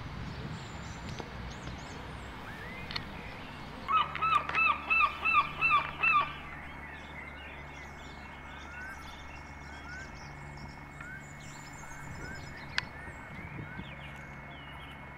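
A run of about eight loud yelping calls in quick succession, about four seconds in and lasting some two seconds, followed by faint small-bird chirps.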